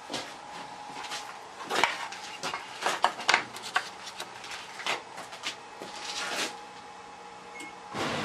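Clicks and clatter of a plastic parts tray being handled and set down at an X-ray baggage scanner's conveyor. Near the end the scanner starts up with a steady mechanical running noise as the X-ray comes on.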